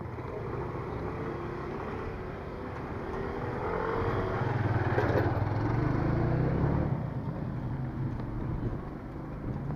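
Motorcycle tricycle with a sidecar passing close by, its engine loudest from about four to seven seconds in, over steady street traffic noise.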